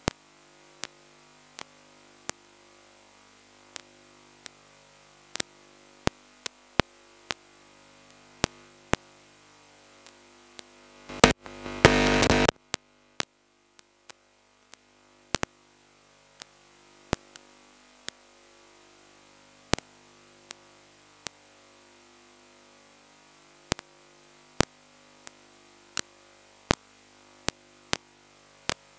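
Electronic static: a steady drone of stepped tones with irregular sharp clicks, and a loud burst of static about eleven seconds in that cuts out briefly afterwards.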